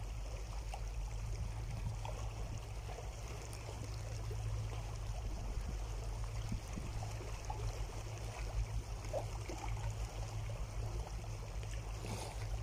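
Small sea waves lapping and trickling over shoreline rocks in a steady wash, over a constant low rumble.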